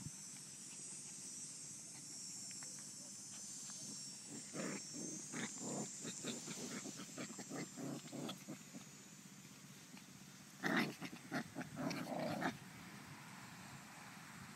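Puppies play-fighting, growling in short bursts, with the loudest flurry about eleven seconds in.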